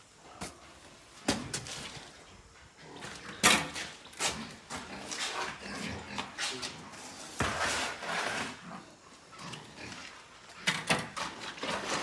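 Pig pen being cleaned: a string of sharp knocks and scraping of a tool on the pen floor, with pigs grunting in between.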